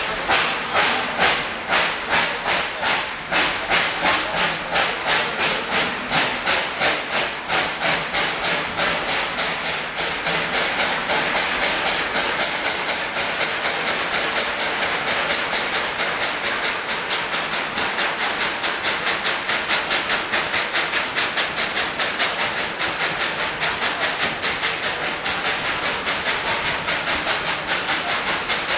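Narrow-gauge steam locomotive pulling away, its exhaust chuffing in a steady rhythm that quickens from about two beats a second to about four as the train picks up speed.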